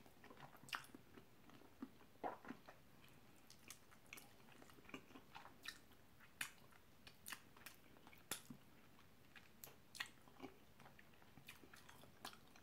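Faint, close chewing and biting of a Buffalo hot wing, with scattered soft wet clicks and smacks as meat is stripped from the bone.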